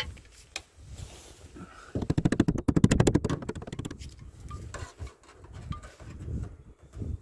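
A short burst of welding on sheet steel: a rapid, loud crackle about two seconds in, lasting about a second, as a patch panel is tacked onto a van sill. Scattered knocks from handling the panel and tools come before and after it.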